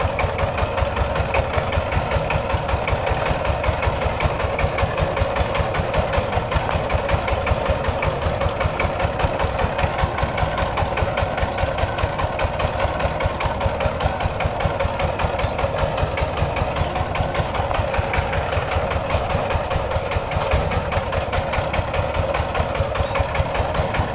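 Two-wheel power tiller's single-cylinder diesel engine running steadily with an even, rapid beat as it pulls a loaded trolley along a dirt track.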